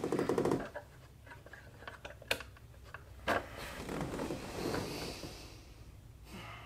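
Bedding rustling as a person stirs and turns over in bed, with two sharp clicks about a second apart, one of them the bedside lamp's switch.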